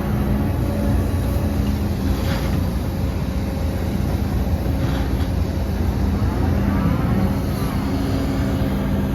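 Heavy diesel engine of earthmoving machinery running steadily, with a constant low drone.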